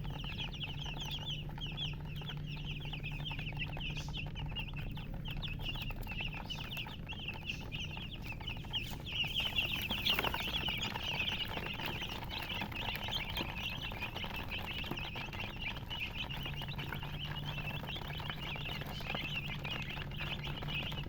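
A brood of baby chicks peeping continuously, many short high chirps overlapping, busiest about halfway through. A steady low hum sits beneath them at the start and again near the end.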